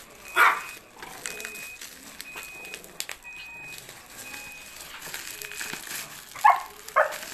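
Plastic bubble wrap crinkling and crackling as it is pulled and torn off a parcel by hand. There is a short loud yelp about half a second in and two more near the end.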